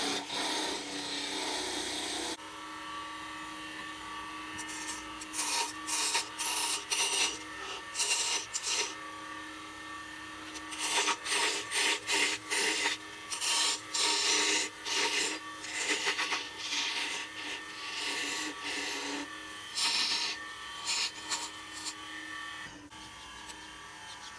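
Wood lathe running with a steady hum while a turning tool cuts the spinning dried wooden door-knob blank in repeated short scraping passes.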